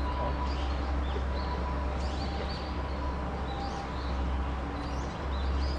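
Small birds chirping, short high chirps repeating throughout, over a steady low rumble.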